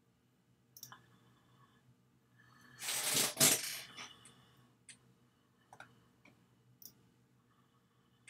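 A few scattered sharp clicks, typical of a computer mouse, with one louder burst of noise lasting about a second and a half near the middle.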